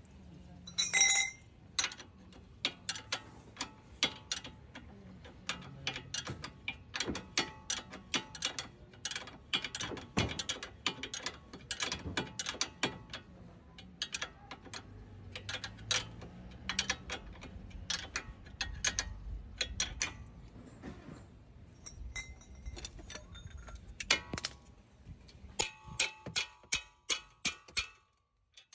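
Hand tools working the strut-to-steering-knuckle bolts: a ratcheting wrench clicking in quick runs, with sharp metallic clinks of steel on the fittings, one ringing clink about a second in.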